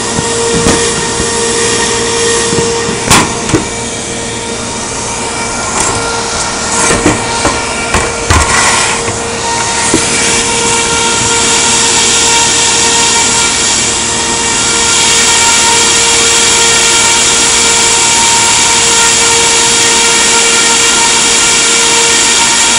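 Sheet-metal press brake's motor running with a steady hum, with a few sharp metal knocks in the first ten seconds. From about 15 seconds in, a louder, even whirring noise joins.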